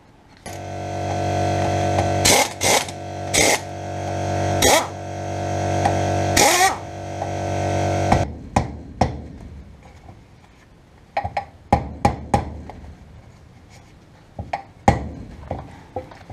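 A loud, steady machine hum with a strong low pitch swells three times and stops about eight seconds in. Sharp metal clicks sound through it, and then come scattered clinks of a spanner working the drive flange nuts on a Land Rover Series 2a rear hub.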